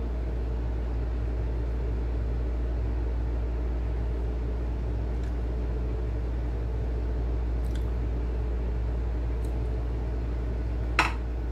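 Steady low hum of background noise, with a few faint ticks and a sharper click near the end.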